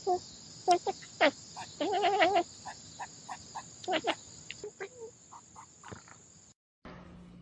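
A small animal making a series of short chirping calls, with a longer warbling trill about two seconds in; the sound cuts off abruptly near the end.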